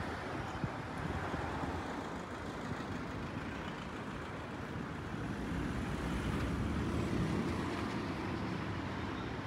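Street traffic noise: cars and trucks running past on a city road, growing a little louder about six seconds in.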